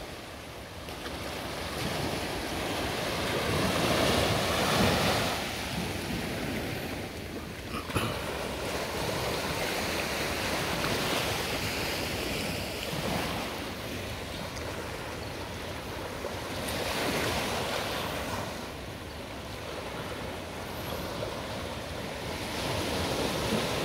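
Small sea waves breaking and washing over sand and rocks at the shore, swelling and fading every few seconds, with one sharp click about eight seconds in.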